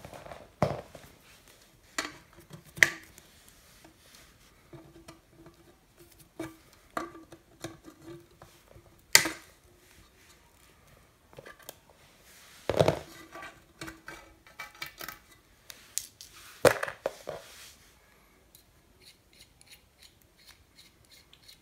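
Wire cutters snipping through the insulated wires of a transformer's old fuse holder: several sharp snips a few seconds apart, with quieter handling of wires and tools between them.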